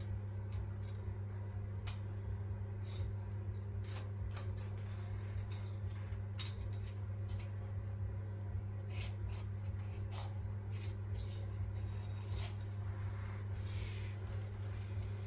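Scattered light clicks and taps of metal on metal as hand tools and a DRO scale are handled against a milling machine, over a steady low hum.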